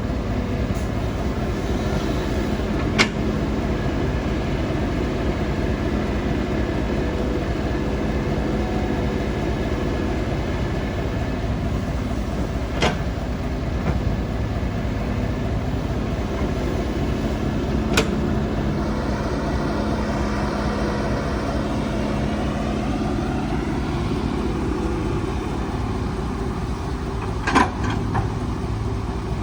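Heavy earthmoving machine's diesel engine running steadily while working on a road cut, with a few short sharp knocks from the machine spread through.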